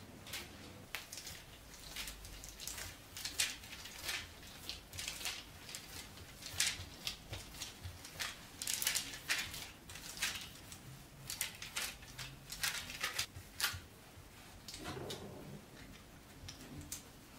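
Greased parchment paper crinkling and rustling in irregular bursts as hands press and stretch soft yeast dough out across it.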